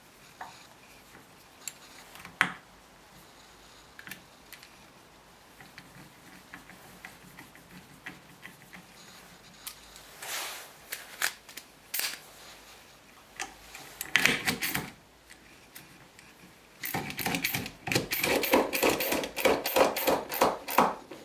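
Hand screwdriver driving wood screws through a plywood vise base into a bench top: scattered clicks and knocks of the tool against metal and wood, then a quick run of rapid clicks, about three a second, in the last few seconds.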